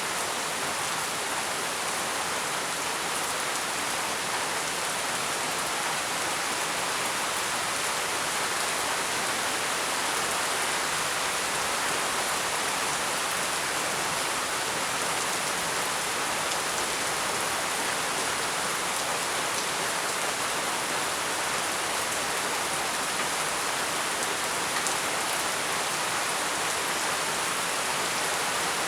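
Heavy rain falling steadily, a dense even hiss of drops on surfaces with no let-up.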